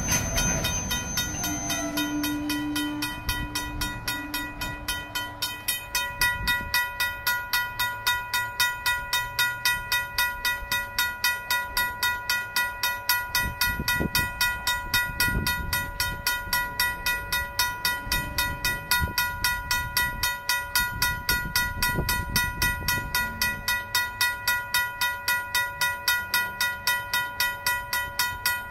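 RACO mechanical crossing bell ringing with rapid, even strikes, about three a second, over a freight train rolling past. The train's cars add low rumbles that swell now and then, and a brief squeal near the start.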